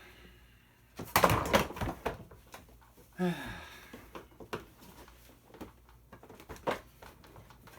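Irregular clicks and clatter of hard plastic toy parts being worked apart with a screwdriver, with a short voice sound, like a grunt, about three seconds in.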